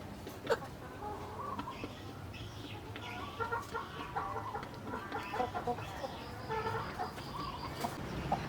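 Chickens clucking in short, repeated calls, with a sharp click about half a second in.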